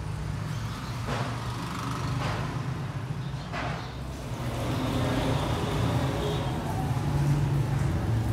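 A steady low motor rumble, with three short soft noises at about one, two and three and a half seconds in.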